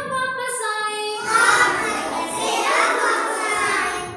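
Young children singing an action rhyme together, with held sung notes that grow fuller and louder about a second in.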